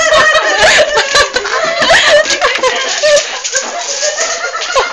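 People laughing and giggling, several voices overlapping continuously.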